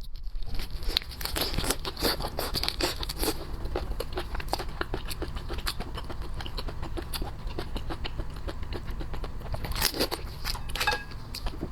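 Close-miked eating sounds: a person biting and chewing crunchy seafood, a dense run of crackles and crunches, with a louder cluster about ten seconds in.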